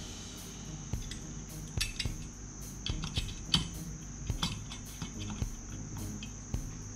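Irregular small metallic clicks and taps of a screwdriver and tiny screws as screws are driven into a radio's metal chassis and picked up from the bench. A steady high-pitched whine runs underneath.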